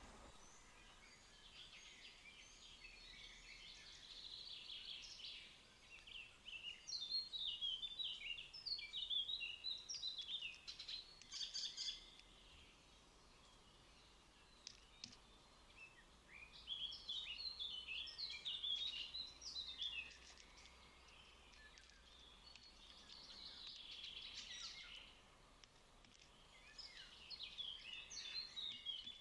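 Birds chirping and singing in several bouts of quick, high notes, with quieter gaps between them, over faint outdoor background noise.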